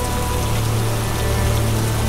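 Steady rain hiss mixed with background music of long, held low notes.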